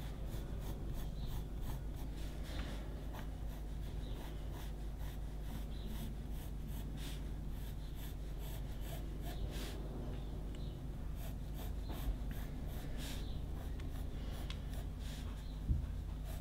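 Pencil drawing lines on paper: a run of short, scratchy strokes over a steady low hum.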